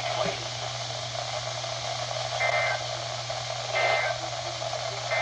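Radio receiver static: a steady hiss over a low hum. It is broken by brief high blips about a second and a half apart.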